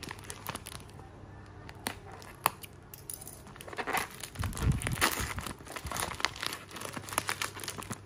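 Plastic mailer bag crinkling and crumpling in the hands, with a few scattered clicks at first and denser crumpling from about three and a half seconds in. A dull low bump near the middle.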